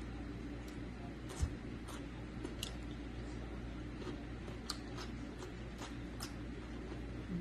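Faint close-up eating sounds: wet chewing with scattered sharp mouth clicks and smacks, one a little louder about a second and a half in, over a steady low hum.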